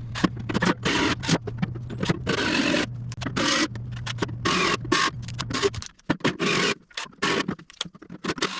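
Electric drill running and cutting into the top of the forge, the bit scraping and grabbing in uneven bursts over a steady motor hum. The motor stops about six seconds in, followed by a few choppier scraping bursts.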